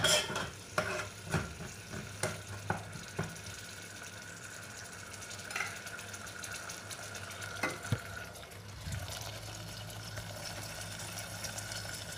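Chili paste frying in oil in an aluminium pot, sizzling steadily, with a metal utensil knocking and scraping against the pot several times in the first three seconds and twice more later. The oil has split out of the paste, the sign that the chili is fried through.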